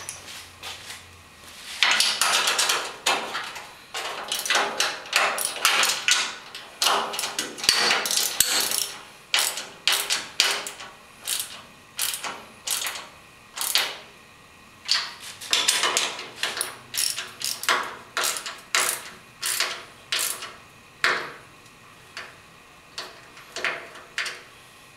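Ratchet wrench clicking in quick repeated strokes, in bursts with short pauses, as mounting bolts are tightened down.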